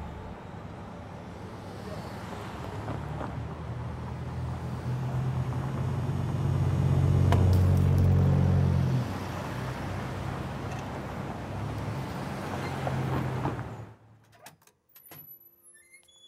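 City street traffic: motor vehicles running and passing, with a low rumble that swells to its loudest in the middle. About two seconds before the end it cuts off abruptly to near quiet with a few faint clicks.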